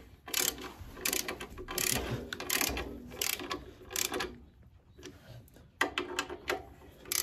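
Ratchet head of a click-type torque wrench clicking quickly as the handle is swung back and forth, snugging the clutch pressure-plate bolts. The clicking comes in runs, stops about four seconds in, and starts again near the end.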